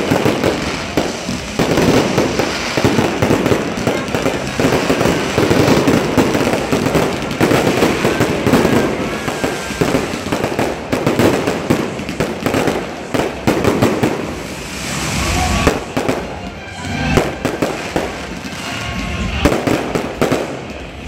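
Aerial fireworks going off at close range in a dense, rapid run of bangs and crackling. In the last few seconds they thin out into separate deep booms.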